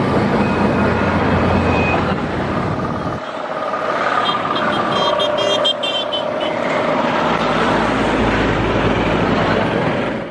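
Indian Railways WDP4B diesel locomotive passing close with a steady low rumble. About three seconds in, the rumble drops away to general traffic noise, and a short run of rapidly repeated high-pitched tones sounds between about four and six and a half seconds in.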